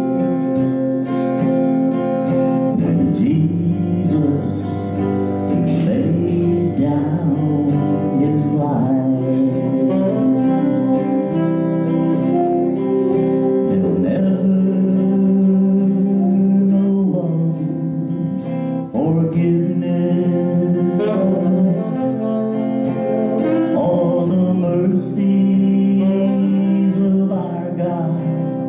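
Live gospel worship song: electric guitar accompaniment with a man singing into a microphone.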